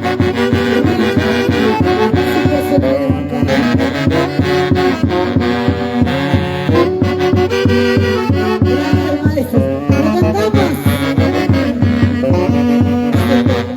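Live Andean tropical dance orchestra playing, with horns carrying the melody over a steady drum beat.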